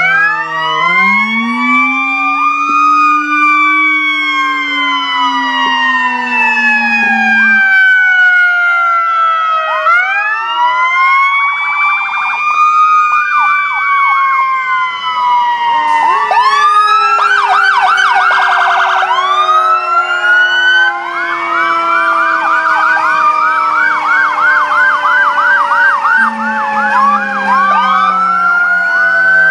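Several emergency-vehicle sirens on ambulances and fire trucks sounding together, overlapping wails rising and falling with fast yelping warbles cutting in at times. A deeper siren tone winds up and slowly down in the first few seconds and again near the end.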